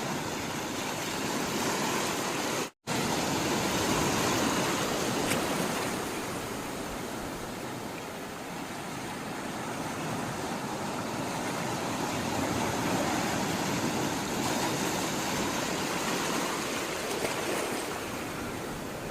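Sea water rushing and washing steadily, slowly swelling and easing in loudness. The sound drops out for an instant about three seconds in.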